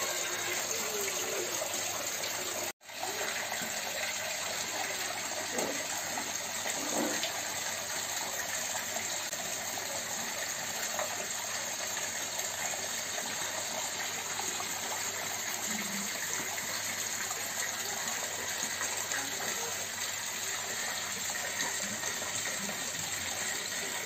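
Water from a small homemade rock waterfall splashing steadily over stones into a shallow pool. The sound drops out for an instant about three seconds in.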